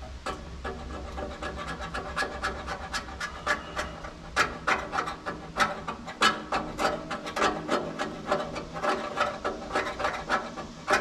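Hand scraping or filing on a painted steel bracket of a sawmill blade guide, in quick repeated strokes of about three to four a second, each with a faint metallic ring. The strokes take paint off down to bare metal.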